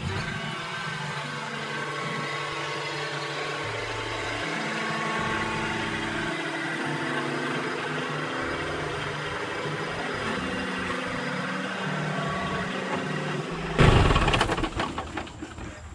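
Kubota B2650 compact tractor's three-cylinder diesel engine running steadily while it pulls a box blade with its rippers in the ground through peanut rows. A sudden loud noise cuts in about 14 seconds in and fades away.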